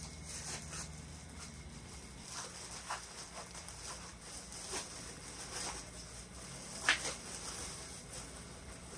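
Faint rustling and shuffling as a person wraps a small dog in a blanket and lifts it from a mesh office chair, with scattered light taps and a sharper click about seven seconds in.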